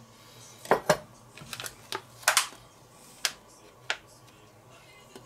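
A few light, irregular clicks and taps from a plastic bacon tray being handled on a wooden cutting board.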